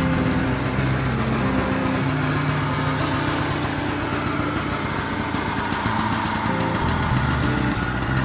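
Honda Lead 100 scooter's single-cylinder engine running steadily at idle.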